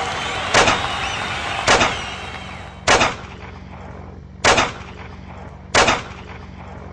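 Five single gunshots a little over a second apart, the first ones over crowd noise that dies away after about two seconds.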